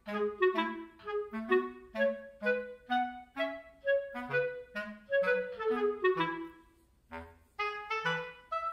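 Background music: a light tune of short, quickly fading notes over a bass line, with a brief pause about seven seconds in.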